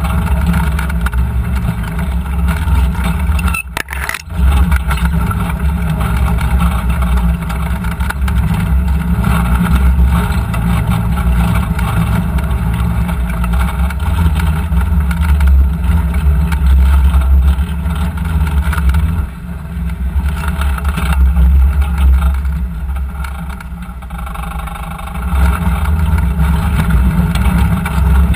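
Side-by-side UTV engine running as the machine drives a dirt trail, heard close from on board as a steady low drone. Its level drops out briefly about four seconds in and eases off twice in the second half.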